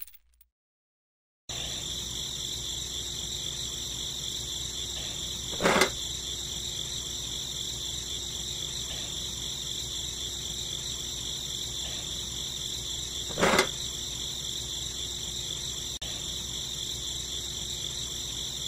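Steady high-pitched chorus of chirping insects, starting about a second and a half in, with two brief louder sounds about six and thirteen seconds in.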